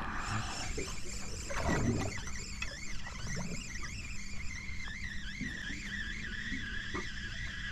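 Spinning reel being wound in, its gears giving a high whine that wavers up and down in pitch with each turn of the handle. A short thud about two seconds in.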